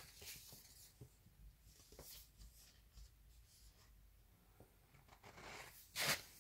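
Faint handling noises: soft rustles and light taps of hands on paper and packaging, with a louder rustle about six seconds in.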